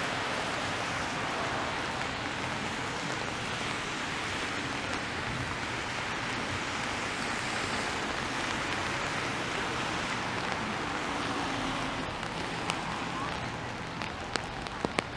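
Steady hiss of rain and car tyres on a wet city street. It eases about twelve seconds in, and a few sharp clicks follow near the end.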